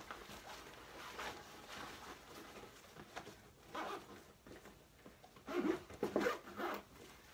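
Clear plastic zippered travel bag for makeup and jewelry being packed and zipped: plastic rustling and zipper pulls, in a louder flurry for a second or so near the end.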